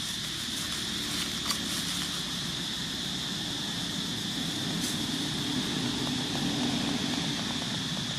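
Steady outdoor background: a low rumble like a distant engine, under a steady high hiss or buzz, with a faint click about a second and a half in.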